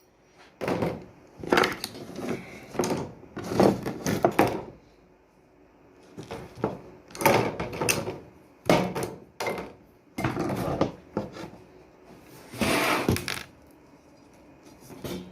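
Irregular knocks, taps and clatter of tools and door parts being handled during a shower sliding door repair, with a longer rattling scrape near the end.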